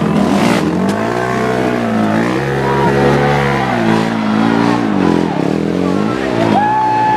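Racing ATV engine revving hard under load on a steep dirt hill climb, its pitch rising and falling several times as the throttle is worked. Spectators' voices run underneath.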